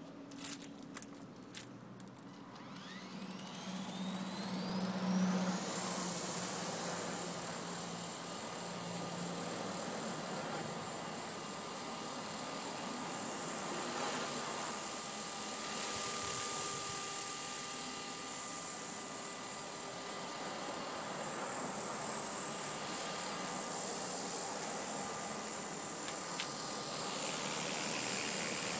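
Walkera V370D05 RC helicopter's electric motor and rotor spooling up with a rising whine over a few seconds, then running steadily as it lifts off and hovers, its high whine and rotor hum growing louder as it comes closer. A few clicks near the start.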